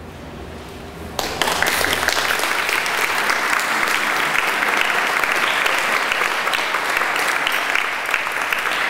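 Audience applauding: the clapping breaks out suddenly about a second in and carries on as a dense, even patter.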